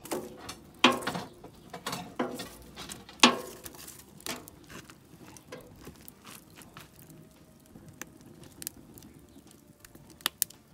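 Wood fire crackling in a barrel grill: a few sharp pops in the first three seconds, then lighter, scattered crackles.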